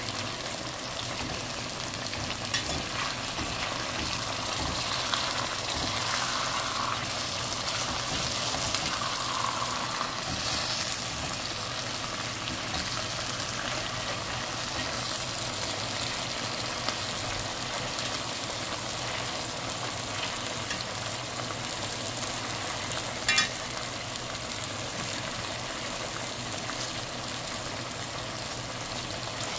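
Chicken pieces sizzling steadily as they brown in oil in a metal pot, with a fork scraping and turning them. A single sharp click stands out late on.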